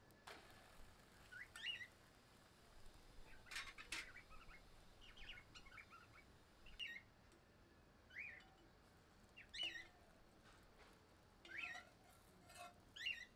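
Faint, short bird chirps every second or two, over near silence.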